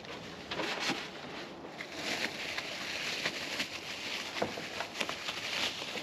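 Rustling and scattered light knocks of the air compressor being handled and lifted out of its carry case.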